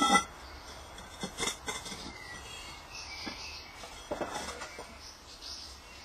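Fired earthenware pots clinking and knocking as they are handled. One ringing clink comes at the start, followed by a few lighter knocks.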